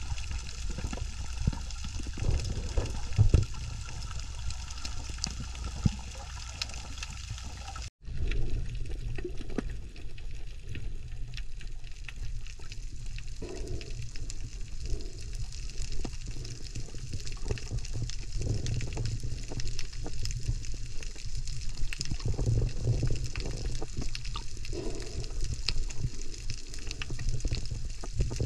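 Underwater ambience picked up by a diver's camera: a steady, muffled low rumble of moving water with a scatter of faint crackling ticks. The sound drops out for an instant about eight seconds in, then carries on the same.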